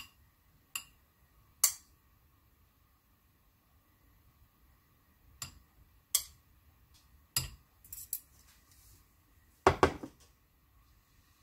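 Chopsticks clicking against a stone bibimbap pot (dolsot) as vegetables are laid in it: scattered sharp taps, a few at a time, with the loudest ones near the end.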